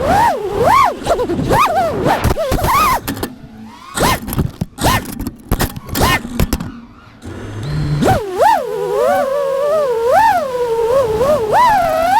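FPV quadcopter motors and propellers whining, the pitch swinging up and down quickly with the throttle. In the middle the whine breaks up into scattered clicks and knocks for a few seconds, then comes back.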